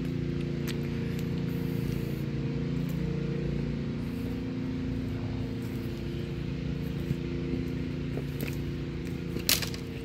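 Steady, unchanging hum of a pump running to drain floodwater, with a few light crackles of footsteps on a stick-strewn dirt trail and a sharper snap near the end.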